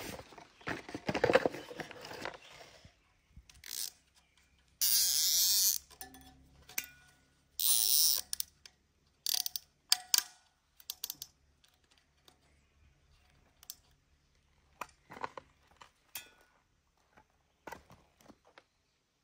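Plastic zip ties being pulled tight through their ratchet locks: two long zipping rasps of about a second each, around five and eight seconds in, followed by scattered short clicks and handling knocks.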